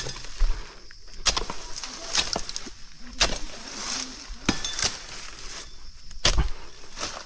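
Oil palm fronds being cut with a sharp long-poled pruning blade: about six sharp knocks and cracks spread out, with leafy rustling between them.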